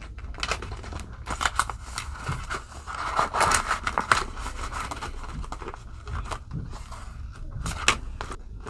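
Rustling and crinkling of polymer banknotes and a clear plastic binder pouch being handled, with scattered small clicks and taps and one sharper click near the end.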